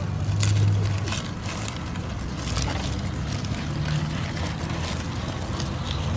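Brushed electric motor and geared drivetrain of a 1/10-scale Vaterra Chevrolet K10 RC crawler whining as it crawls over rough ground, its pitch shifting with the throttle and loudest about half a second in. Dry leaves crackle under the tyres.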